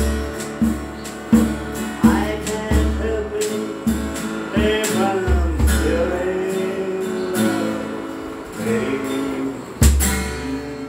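An acoustic guitar strummed along with a tall hand drum struck with bare hands, giving irregular deep thumps. A voice sings a melodic line over them from about two seconds in until near the end.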